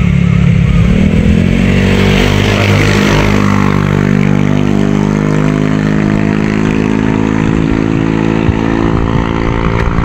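Motorcycle engine pulling away: its pitch rises about one to two seconds in, then holds steady as it cruises along.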